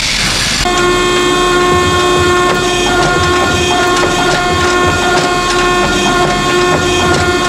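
Hydraulic forging press running: its pump and motor give a steady, pitched whine-drone with light clicks while a hot blade is squeezed between the dies. Under a second in, a hiss cuts off and the drone begins.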